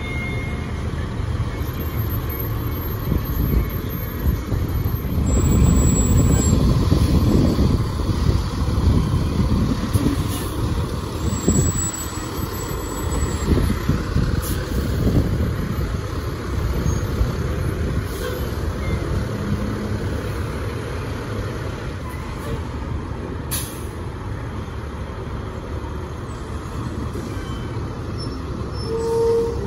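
Diesel engines of fire engines and a propane tank truck driving slowly past one after another: a steady low rumble that swells as each truck goes by.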